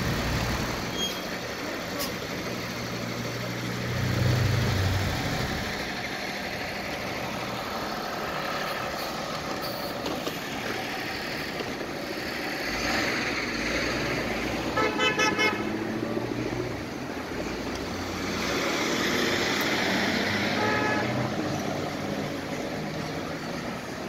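Busy city street traffic: vehicles running past, with a low engine rumble over the first few seconds. About 15 seconds in, a vehicle horn honks in a quick run of short toots.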